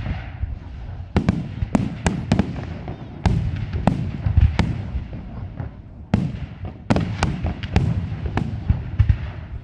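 Aerial fireworks shells bursting in a rapid, irregular series of sharp bangs, some in quick clusters, each followed by a low rumble that echoes away.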